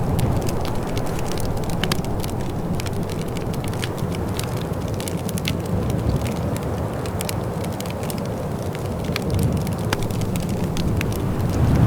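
Wood fire in a fireplace crackling: irregular sharp pops and snaps over a steady low rushing sound.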